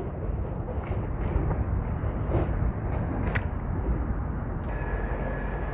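Low, steady rumble of city traffic, with a steady high-pitched whine coming in near the end.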